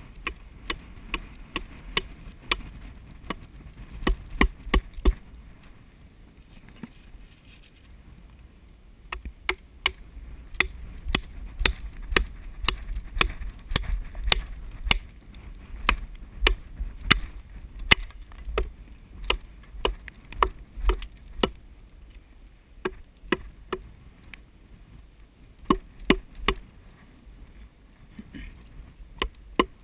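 Hammer blows on wood, in runs of quick strikes about two a second, driving thin wooden shims between a wooden nest box and a dead tree snag to wedge the box in place.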